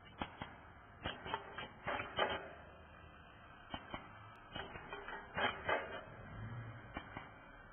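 Spoon-wrapping and sealing machine clacking irregularly, in short clusters of sharp clicks, as tamarind candy spoons are fed by hand into its sealing rollers. A low hum comes up briefly about six seconds in.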